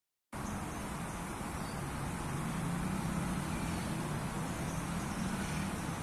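Steady outdoor background rumble with a low hum, cutting in abruptly just after the start; the rooster does not crow.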